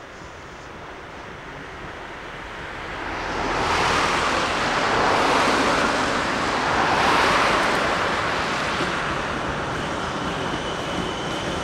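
Narrow-gauge Mallet tank steam locomotive 11sm working a train, its exhaust a rushing noise that grows much louder about three seconds in as it draws near, then swells up and down.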